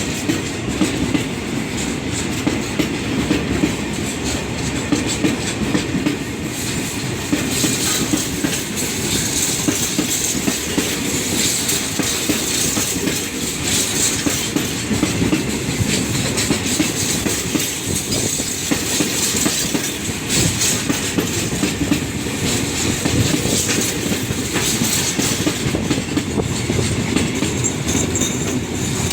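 A train rolling past at close range, its wheels clattering steadily over the rail joints, with a hissing rush from the wheels and cars through the middle of the passage.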